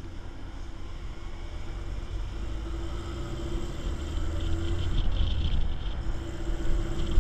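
Engine and road noise of an open military off-road vehicle, heard from on board: a steady low rumble with an engine hum that grows gradually louder as the vehicle picks up speed.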